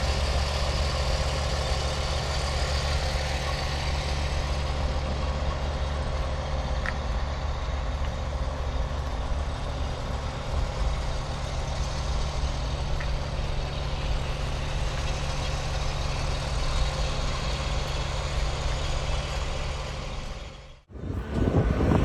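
Heavy diesel engine running steadily with a deep, even drone. The sound cuts off abruptly near the end and a different, louder sound begins.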